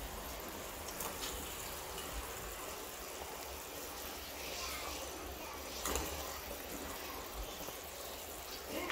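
Steady fizzing and bubbling of hot sugar syrup around freshly fried fritters in a steel pot, with a few light metal clicks.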